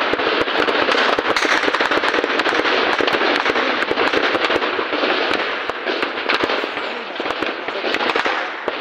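Sustained rapid gunfire: a dense, loud crackle of many shots over a rushing noise, easing off a little near the end.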